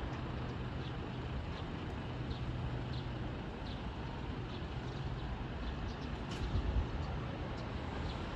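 Outdoor city ambience with a distant electric train running on an elevated line: a steady low rumble and hiss. Faint short high chirps repeat about every two thirds of a second.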